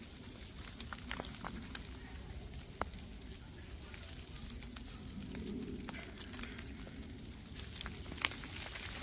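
Outdoor park ambience: a steady low rumble with faint, scattered crackles and ticks.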